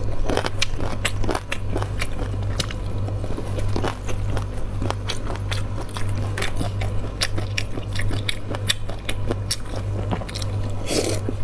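Close-miked eating of cold alkaline-water noodles: slurping up the strands and chewing, with many quick wet mouth clicks and smacks, over a steady low hum.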